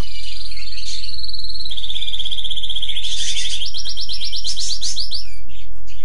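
A songbird singing trills of rapid, evenly repeated notes. Each trill holds one pitch: a high trill, then a lower one, then a higher one, with the song stopping about five seconds in.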